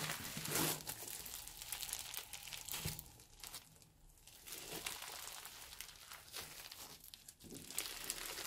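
Crunchy floam, slime packed with foam beads, being squeezed, pulled and kneaded by hand, giving a dense crackling crunch. It is loudest in the first second, dips about three to four seconds in, then resumes.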